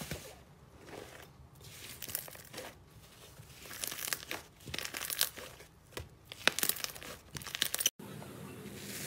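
Hands squeezing, kneading and pulling apart a thick white slime, which crackles, tears and pops under the fingers. The crackles grow denser and louder in the second half. They stop suddenly near the end, giving way to a quieter steady hiss.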